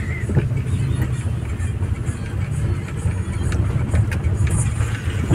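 Car engine and road noise heard from inside the cabin: a steady low rumble while driving slowly on a wet road, with scattered light ticks.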